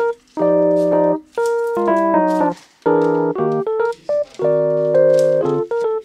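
Background music: piano chords played in blocks of about a second, with brief breaks between them.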